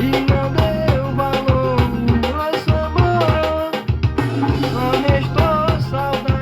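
Recorded song playing: a steady drum-kit beat over a bass line, with a gliding melody on top.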